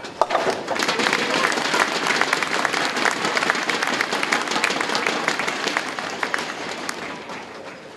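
A bowling ball knocks down the last pin for a spare with a sharp clatter, and an audience bursts into applause about half a second later. The clapping stays loud and dense, then thins out over the last couple of seconds.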